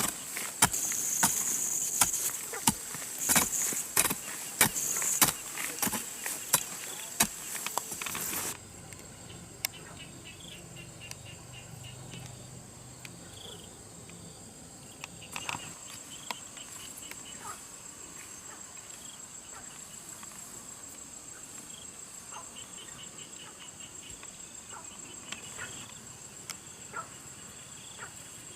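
Rapid, repeated sharp strikes and scrapes of a hand tool chopping into grass and soil, which stop suddenly about a third of the way in. Insects chirp steadily after that, with a high-pitched trill.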